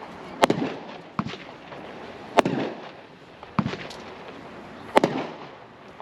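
Brothers Fireworks 51-shot 500-gram cake firing: a sharp bang every second or so, five in all, each followed by a brief crackle.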